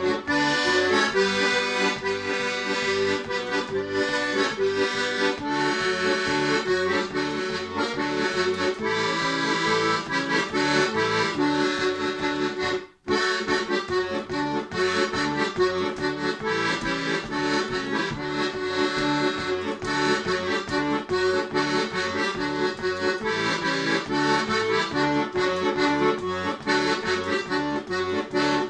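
A piano accordion playing a tune solo, a melody over a steady rhythmic bass. The music drops out for an instant about 13 seconds in, then carries on.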